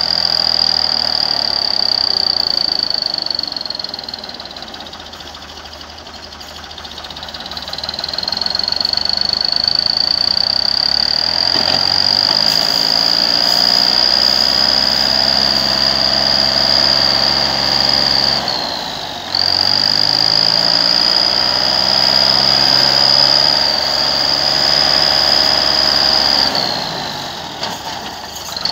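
Ford farm tractor's diesel engine labouring under heavy load as it drags a fully loaded soil trolley uphill. The revs sag and recover three times, near 5 s, 19 s and 27 s, and a high whine falls and rises in pitch with the engine speed.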